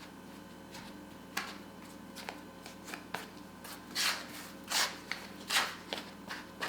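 A bench scraper cutting butter cubes into a pile of flour on a work surface: a few light taps at first, then several short scrapes against the board in the second half.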